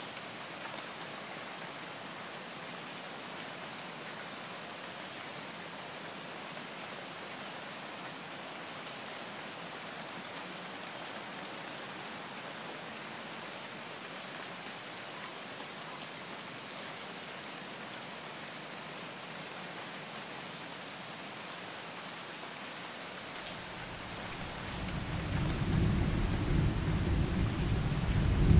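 Steady rain falling, and about three-quarters of the way in a deep roll of thunder builds up and grows loud.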